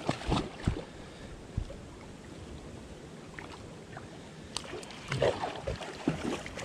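Shallow creek water running and lapping close by, with a few sharp clicks and knocks in the first second and again around the middle.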